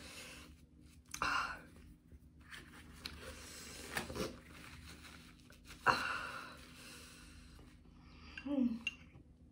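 A woman sniffling and breathing hard through a nose burning from a super-hot chili chip, with a few sharp sniffs, the loudest about six seconds in. Near the end a spoon knocks against a small plastic cup.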